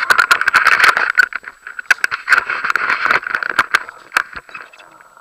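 Rattling and scraping handling noise from a Drift HD action camera on a hand-held pole, full of sharp clicks; it thins to scattered clicks after about three seconds.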